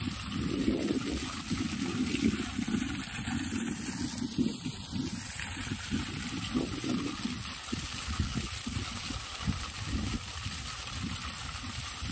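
Water jetting out of the top of a tall vertical borewell pipe and splashing to the ground, a steady rushing with a machine running beneath it.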